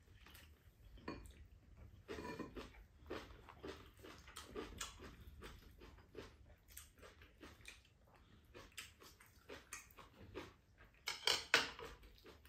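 Two people eating: chopsticks and spoons clicking against ceramic bowls and a plate, mixed with chewing and mouth sounds, in irregular short clicks with a louder clatter near the end.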